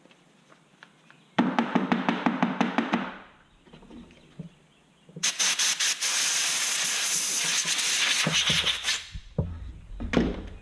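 Compressed-air blow gun blowing out a chainsaw's housing: a short fluttering burst about a second in, then a longer steady hiss of about four seconds, with a couple of knocks near the end.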